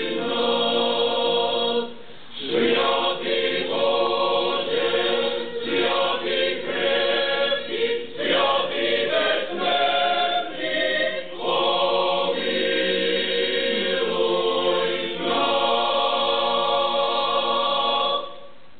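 Choir singing, with a short break about two seconds in; the last chord is held and cuts off just before the end.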